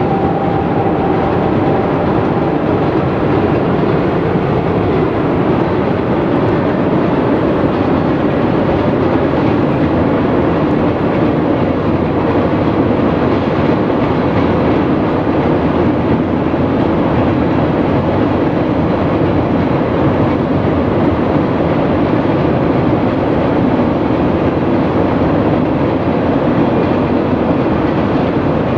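Freight cars of a long freight train rolling across a high steel trestle bridge: a steady, unbroken noise of wheels and cars on the steel span.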